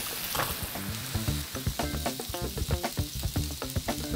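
Chicken skewers sizzling in a hot oiled pan, a steady hiss with small crackles, and a knife cutting through a lemon on a wooden board about half a second in.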